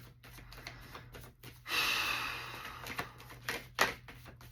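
Tarot cards being shuffled by hand: a run of short, soft card clicks, with a louder rustling burst lasting about a second, about two seconds in.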